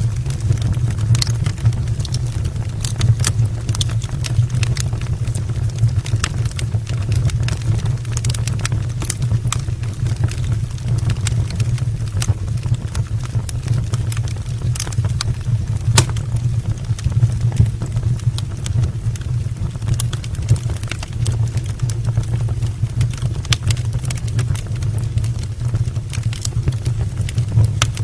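Firewood burning in an open brick fireplace: a steady low roar of the flames with scattered sharp crackles and pops from the logs.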